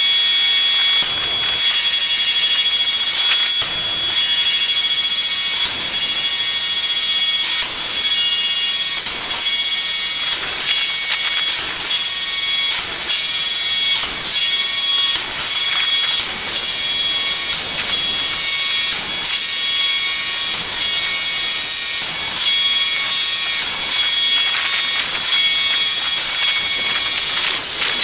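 Tee hydroforming press at work. A loud, steady high hiss with several thin whining tones comes from its high-pressure hydraulic and water system as it forms pipe into a tee. The hiss is broken by brief dips and knocks about every second and a half.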